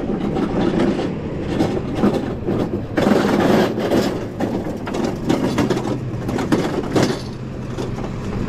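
Magliner aluminium hand truck pushed over concrete and asphalt: wheels rolling with a continuous rattle and clatter, a little louder from about three seconds in.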